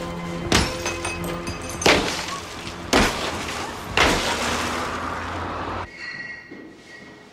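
A car's windscreen being smashed with repeated blows: four loud cracks of breaking glass about a second apart, over a low sustained music score. About six seconds in the smashing stops and only a faint, quiet passage remains.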